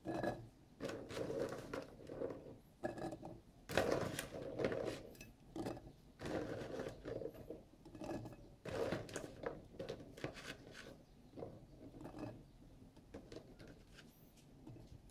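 Small white cà pháo eggplants being dropped and pressed by hand into a glass jar, packed tight for pickling. They make irregular knocks and clicks against the glass and each other, a little louder about four seconds in and again near nine seconds.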